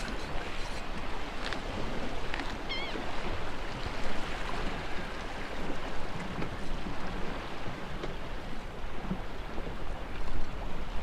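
Wind blowing across the microphone over the wash of surf against the jetty, a steady rushing noise with a low rumble that swells and dips. A short, high, wavering chirp sounds once about three seconds in.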